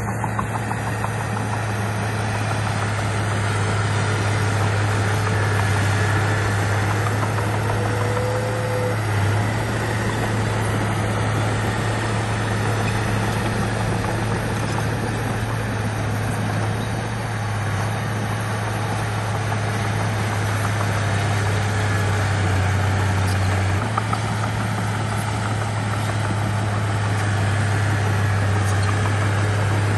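A bulldozer's heavy diesel engine running steadily with a strong low hum, its level rising and falling only slightly.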